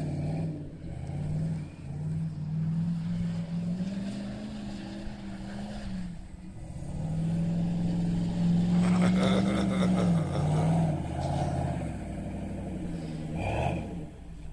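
A 1996 Jeep Grand Cherokee's 5.2-litre V8, breathing through a Flowmaster Super 44 muffler and high-flow cat, revs in long held pulls while the Jeep drifts on snow. The revs drop off about six seconds in and again about eleven seconds in, and there is a short rev near the end.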